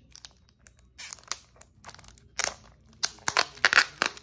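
Clear plastic shipping cups being handled and white packing material being pulled apart by hand: a run of short crinkles, rustles and clicks, loudest and thickest near the end.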